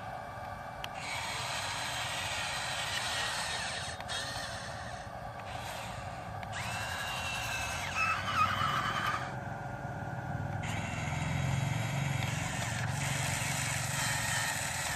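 A toy RC excavator's small electric motors run in bursts of two to three seconds that start and stop abruptly, some with a thin whine, over a steady hum.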